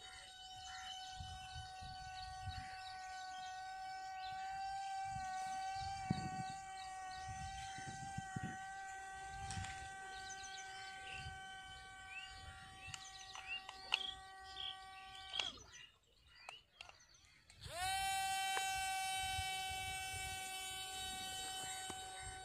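Small coreless electric motors of an RC boat whine steadily at a high pitch. They cut out about fifteen seconds in and spin back up about two seconds later. Birds chirp faintly throughout.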